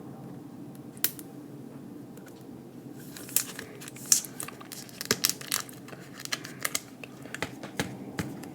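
Plastic card packaging crinkling and crackling as it is handled, in irregular small clicks, sparse at first and busier from about three seconds in.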